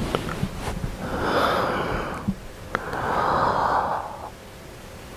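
A person breathing heavily as if asleep: two long, noisy breaths about a second and a half each, with a few faint clicks between them.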